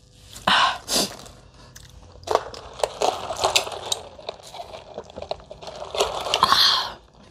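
A nose blown twice into a tissue, then a long sip sucked through a plastic drinking straw, louder just before it stops near the end.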